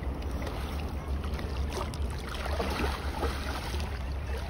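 Water splashing as a big hooked fish thrashes at the surface, under a steady low rumble of wind on the microphone.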